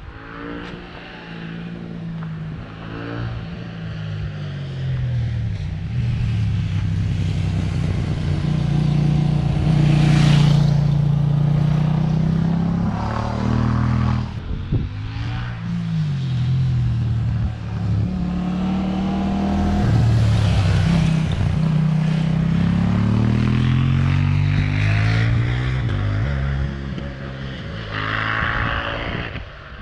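Road vehicle engines passing on a mountain road, their pitch climbing and dropping with changing revs. The sound swells to loud peaks about ten and twenty seconds in, with a short dip in between.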